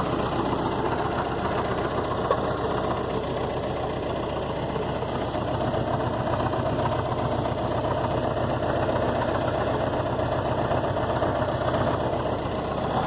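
Gehl 4400 skid steer's Ford Pinto-type four-cylinder gas engine idling steadily, an engine the owner says needs a tune-up.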